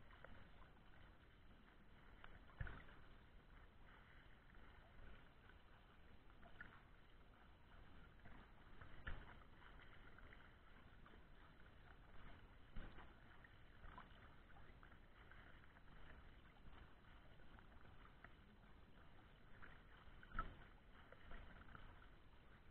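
Faint water sloshing and splashing right at the surface as swimmers do front crawl close by, with a few louder splashes standing out.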